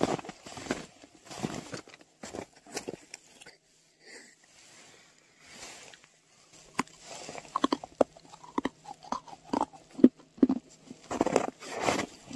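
Footsteps crunching through snow, with a short lull about a third of the way in before the steps pick up again and come heavier near the end.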